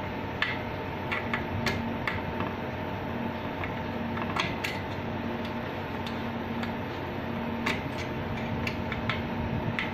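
Steady hum of running electronic equipment with a cooling fan, with scattered small clicks and taps as the IDU's memory module is handled and pulled out.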